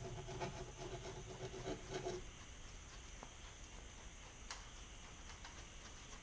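Plastic spreader scraping and rubbing fibreglass-reinforced body filler against a mixing board as the hardener is worked in until it is all one colour. A faint steady hum runs for the first two seconds, and there are a few light clicks later on.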